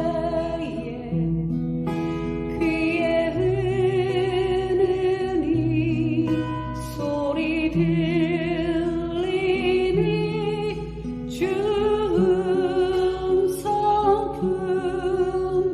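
Christian praise song: a solo voice singing with vibrato over acoustic guitar accompaniment.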